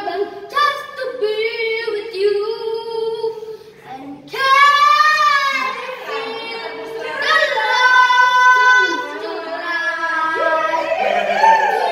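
A young boy singing solo, holding long notes that slide up and down in pitch, loudest on two long held phrases in the middle.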